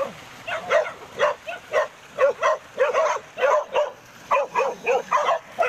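A dog barking rapidly and repeatedly, several short sharp barks a second, with brief pauses about two and four seconds in.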